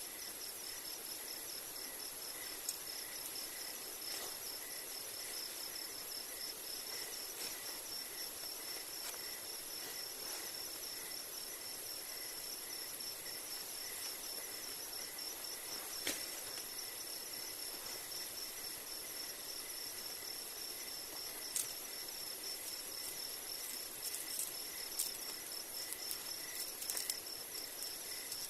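Insects chirping steadily in several overlapping layers, one high constant buzz and lower rapid pulsing trills, over a soft hiss. A few sharp clicks come through, more often in the last few seconds.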